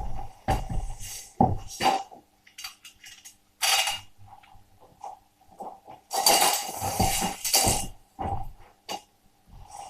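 Clattering knocks and clinks of hard objects being handled, with a louder rasping scrape lasting about two seconds, some six seconds in.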